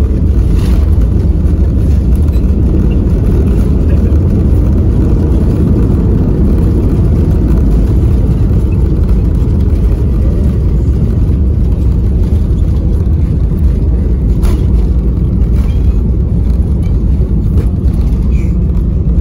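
Loud, steady rumble inside the cabin of an Airbus A320-200 rolling down the runway just after landing: its engines and landing gear on the runway surface.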